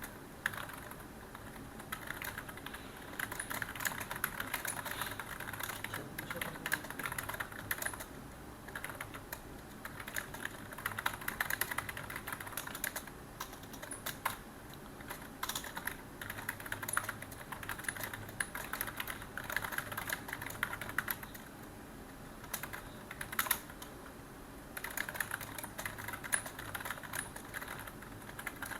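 Computer keyboard typing in quick runs of keystrokes, with short pauses between the runs.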